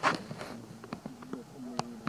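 A flying insect buzzing close by, a steady low hum that wavers slightly. Around it are small scattered clicks and rustles of macaques handling and eating rice from a plastic bag.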